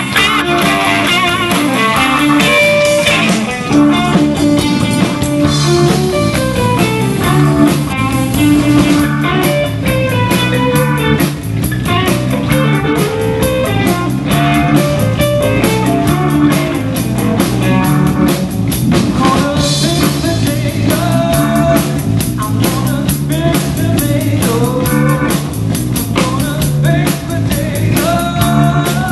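Live rock band playing blues-rock: a Strat-style electric guitar over a drum kit.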